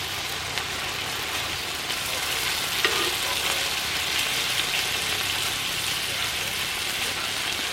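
Food sizzling in a pan on a wood stove: a steady frying hiss with fine crackle and a few light ticks.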